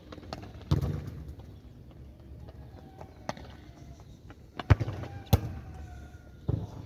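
Outdoor ambience with a low rumble, several sharp knocks or thumps (two close together about two-thirds of the way through are the loudest), and faint bird calls in between.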